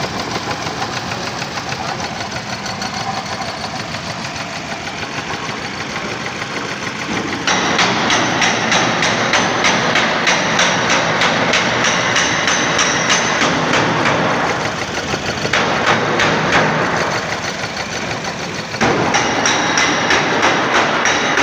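Car engine running with a fast, even ticking through it, typical of a misfire from a faulty spark plug. It gets louder about a third of the way in, drops back briefly, then rises again near the end.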